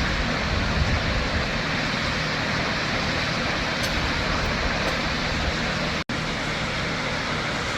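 Shoshone Falls on the Snake River: a steady rush of falling water, with a split-second dropout about six seconds in.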